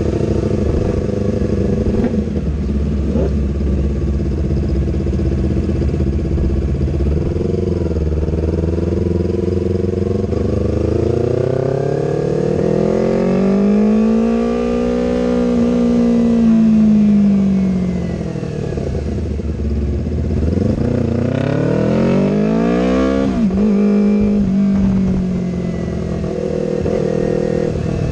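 Yamaha R3's parallel-twin engine running at low speed, steady for about ten seconds, then rising and falling in pitch twice as it is throttled up and eased off.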